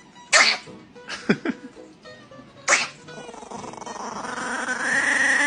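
Chihuahua yapping sharply three times, then a long sound that rises in pitch and holds, with music underneath.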